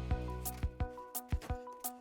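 Background music with a steady beat: sustained notes over regular percussion hits, the bass dropping away about half a second in.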